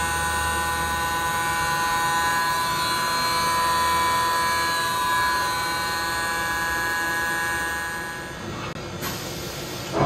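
Mori Seiki SV-500 CNC machining center running, a steady whine of several tones that dies away about eight and a half seconds in. A loud hiss starts at the very end.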